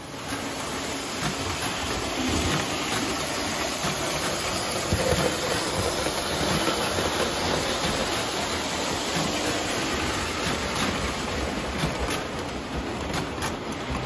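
Lionel postwar O-gauge Santa Fe F-3 diesel and its passenger cars running on tinplate three-rail track: a steady rumble of the motor and metal wheels on the rails, with a few sharp clicks near the end.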